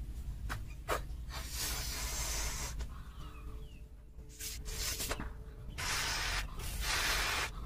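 A rubber balloon being blown up by mouth: several long puffs of breath blown into it, with short pauses between them.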